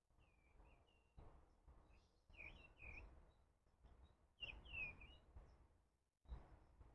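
Faint bird song: short phrases of chirping notes in three bursts about two seconds apart, over soft rustling of hands at work near the microphone.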